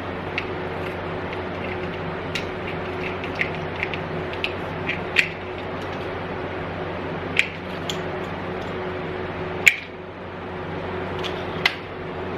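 Old pinball machine parts being handled and set down: scattered light clicks and knocks, with two louder knocks near the end, over a steady low hum.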